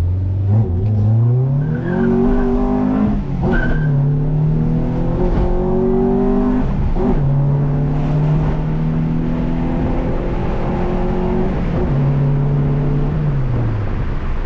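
Honda Civic's B20 VTEC four-cylinder engine pulling hard under full acceleration. The revs climb, drop at two upshifts a few seconds apart and climb again in each gear, then fall away as the throttle is lifted near the end.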